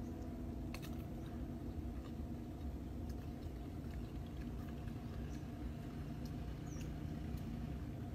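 Steady low hum with scattered small clicks and rustles of hand movements, as a plastic water bottle is handled and drunk from.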